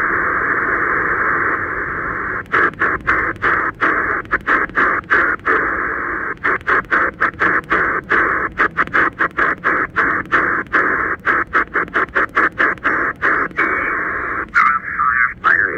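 Choyong LC90 radio's speaker hissing with shortwave band noise in upper sideband on the 20-metre amateur band. From a couple of seconds in, the hiss is chopped by quick dropouts, several a second, as the tuning knob steps up through the band. Near the end a garbled sideband signal starts to come through.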